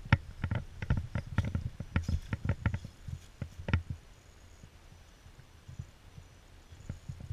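Axial AX10 rock crawler bumping and scrabbling over rock: a quick, irregular run of knocks and clicks from tyres and chassis striking stone, then only a few light taps near the end.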